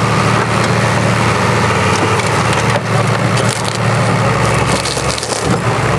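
Engine of a heavily modified Suzuki Samurai off-roader running steadily as it climbs onto a wrecked car, over crunching and cracking of the car's crumpling bodywork, with a burst of sharp cracks about three to four seconds in.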